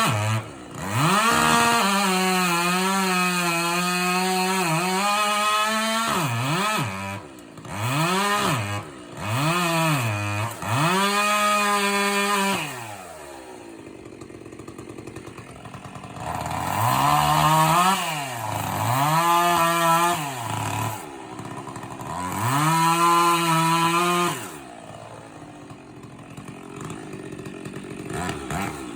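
Chainsaw revving up and down repeatedly: held at high revs for several seconds at the start, then a run of short throttle blips, dropping back to a lower idle twice, about halfway through and near the end.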